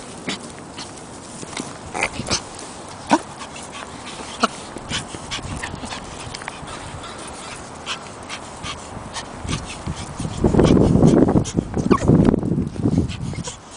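Pomeranian whimpering and yipping in many short, high chirps, begging for a stick. Near the end comes a loud, rough scuffling noise lasting a couple of seconds.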